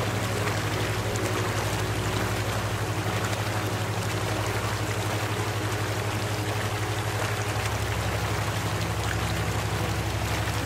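Steady rushing water like a stream, over a low droning hum of sustained tones that throbs rapidly.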